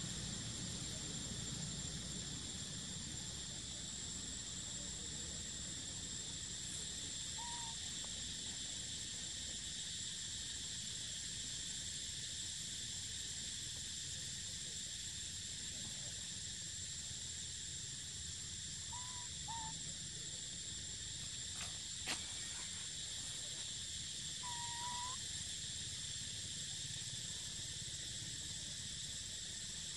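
Steady high-pitched drone of insects, with a few short soft hoots at intervals, the longest about five seconds before the end, and one sharp click about two-thirds of the way through.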